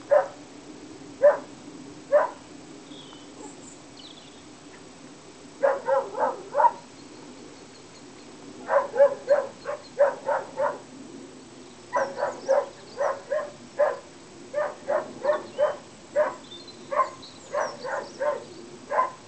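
A dog barking: a few single barks, then runs of four to seven quick barks, about three a second.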